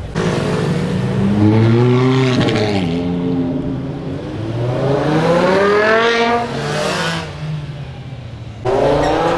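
BMW M5's 5.0-litre S85 V10 revving hard under acceleration, in several short passes: the pitch climbs and falls off about two and a half seconds in, climbs again to a high wail around six seconds in before dropping away, and a new loud burst of revving starts abruptly near the end.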